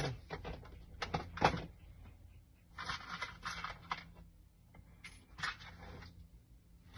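Flat-head screwdriver working on the parts of a dismantled keypad door lock: a few sharp clicks, the loudest about a second and a half in, and short stretches of scraping.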